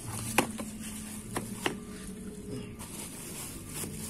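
Cardboard box and packaging being handled as it is opened, with a few sharp clicks and knocks: the loudest about half a second in, two lighter ones about a second later.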